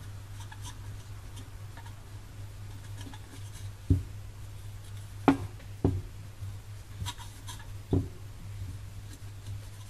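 Plastic inkjet printhead handled on a glass cooktop while being dabbed dry with a cloth: four sharp knocks of the head against the glass as it is turned over, with faint cloth rustling over a steady low hum.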